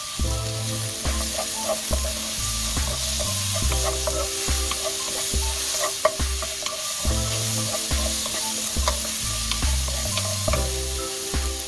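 Sliced onion, carrot and scallions sizzling as they stir-fry in a wok, tossed with a wooden spatula that scrapes and taps against the pan many times.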